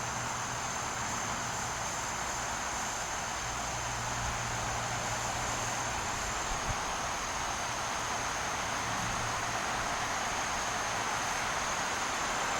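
Steady outdoor ambience: a continuous high insect drone over an even hiss and a faint low hum.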